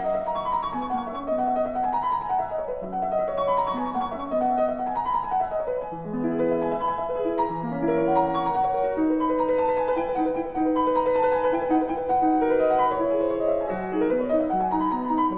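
Background instrumental music led by piano, playing flowing runs of notes that rise and fall.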